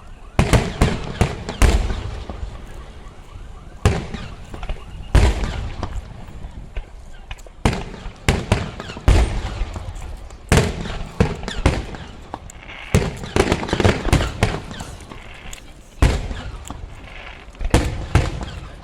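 Fireworks display: aerial shells going off in irregular bangs, some single and some in quick clusters of several a second, each followed by a short echoing tail.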